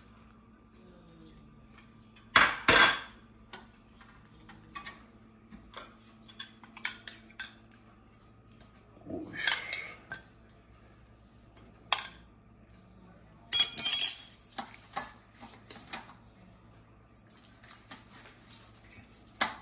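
Metal spoon clinking and tapping against a glass bowl and a metal roasting pan and rack as marinade is spooned over a leg of lamb. The clinks come irregularly, the loudest about two and a half seconds in, with others near the middle and about two-thirds of the way through.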